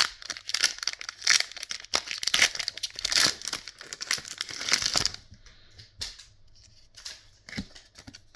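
Foil booster-pack wrapper being torn open and crinkled, a dense crackling rustle lasting about five seconds, followed by a few light rustles and taps as the cards are handled.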